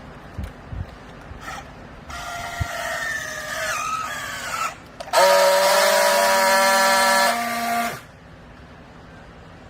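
A machine whine whose pitch slides down for a few seconds, then a loud, steady, horn-like tone that holds for about three seconds and cuts off.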